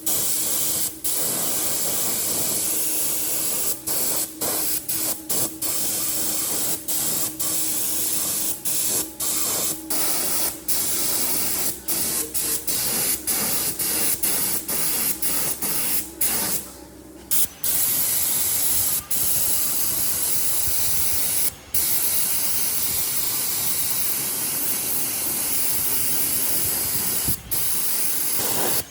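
Steady spraying hiss, cut by many short pauses and one break of about a second a little past the middle.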